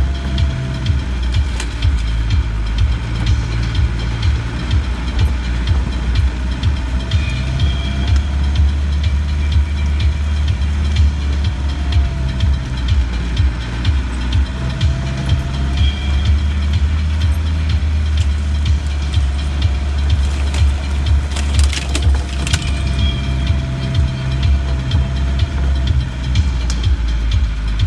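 Land Rover engine droning steadily at low speed, heard from inside the cab, with a faint wavering whine over it. Scattered knocks and rattles run through it from the body jolting over ruts, with a cluster of sharper knocks about three-quarters of the way through.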